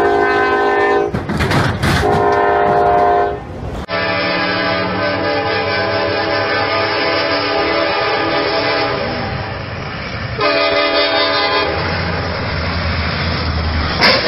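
Freight locomotive air horns. The first locomotive sounds two long blasts. After a cut, another sounds one long blast and then a shorter one over the low rumble of the approaching train. A sudden crash comes right at the end.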